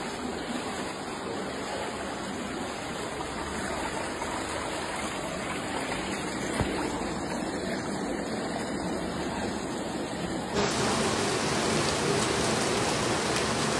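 Steady rush of flowing floodwater. About ten and a half seconds in it turns louder and fuller.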